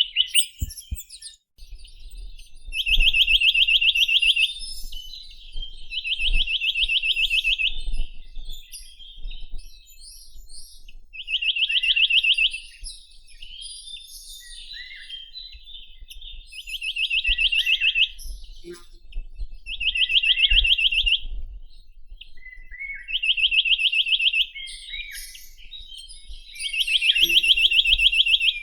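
Chinese nuthatch (Sitta villosa) singing: a fast, even trill about a second and a half long, repeated seven times a few seconds apart, with fainter short chirps in between.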